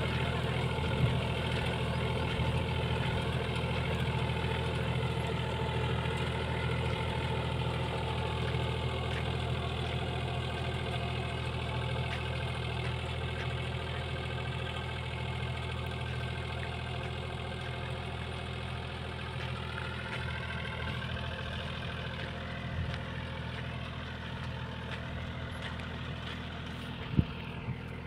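VST 929 compact tractor's diesel engine running steadily under load while pulling a seed drill, slowly fading as it moves away. A sharp click about a second before the end.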